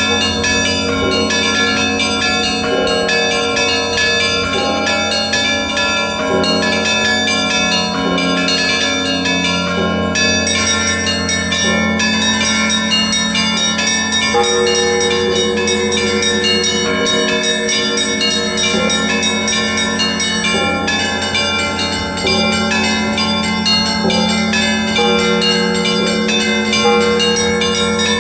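Orthodox monastery bells ringing together: many bells of different pitches are struck over one another in a continuous peal, and the pattern of strikes changes about a third and two thirds of the way through.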